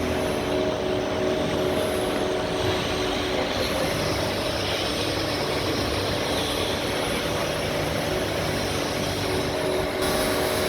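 Modernized Morara grinder running: a steady machine noise with a hum of several steady tones, which fades about three and a half seconds in and returns near the end.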